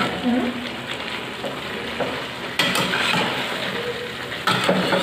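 Chicken frying in a pan with onion paste, a steady sizzle while it is stirred, with a few sharper scrapes or knocks of the spatula.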